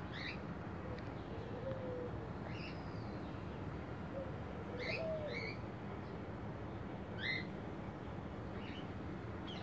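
Birds calling: short high chirps every second or two, and a lower gliding call twice, over a steady low background noise.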